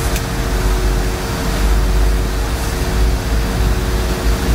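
Steady cabin noise of a Boeing 717-200 with its engines running: a low rumble and an even hiss, with two steady hum tones over them.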